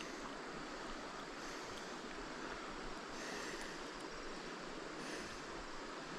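River water flowing, a steady rush with no breaks.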